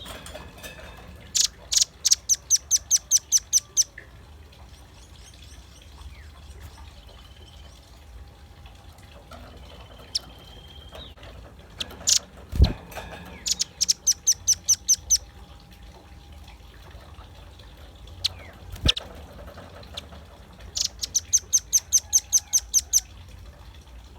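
Velvet-fronted nuthatch calling in three rapid bouts of sharp, high chip notes, about four a second, each bout lasting two to three seconds. Two sharp knocks fall between the second and third bouts.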